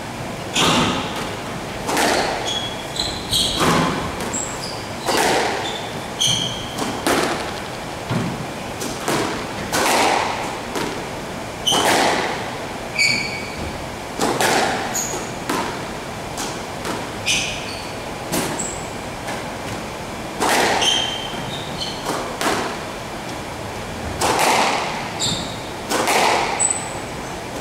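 Squash rally: sharp thuds of the ball off racquet strings and court walls, about one a second, with short high squeaks of court shoes on the wooden floor between the hits.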